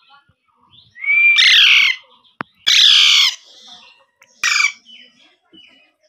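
Young Alexandrine parakeet giving three harsh squawks: the first about a second long, the second shorter, and the last brief. A single sharp click falls between the first two squawks.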